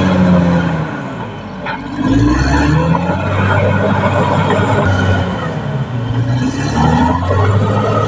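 Caterpillar D6R XL crawler bulldozer's diesel engine working under load as the dozer pushes soil along a hillside cut. The engine note sags about a second in, climbs back up a second later, and dips and rises again near the end as the load on the blade changes.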